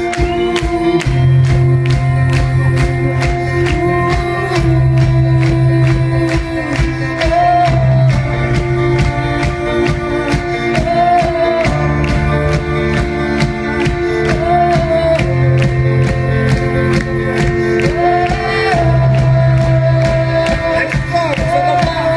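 A live band plays a pop song: a drum kit keeps a steady beat under keyboard chords and long held bass notes, with a voice singing over them.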